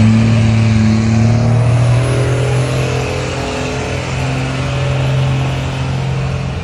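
Second-generation Dodge Ram's 5.9 L Cummins inline-six diesel running hard under heavy load while pulling a weight sled, a loud steady drone whose pitch shifts slightly a couple of seconds in.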